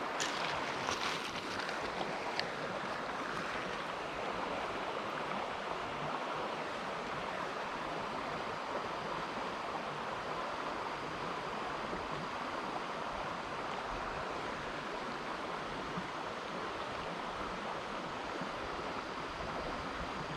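Shallow creek water running steadily over rocks, an even rushing wash, with a few light clicks in the first couple of seconds.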